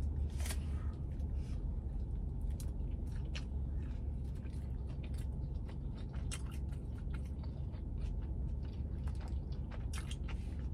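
Close-up chewing of a mouthful of burrito, many small wet clicks and crunches from the mouth, over a steady low hum inside a car.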